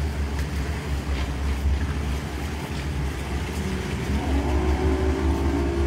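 Motorboat under way: a steady low engine drone with wind and water noise rushing past the hull. About four seconds in, an engine note rises and then holds steady.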